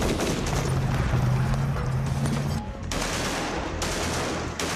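Rapid automatic gunfire, a fusillade of many shots, over a low steady music drone. The drone stops a little over halfway, leaving a dense continuous rattle of fire with a few abrupt breaks.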